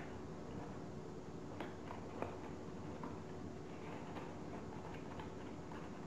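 Sheets of origami paper crinkling and clicking softly as hands tuck one paper module into another, a few irregular small ticks over a faint steady hum.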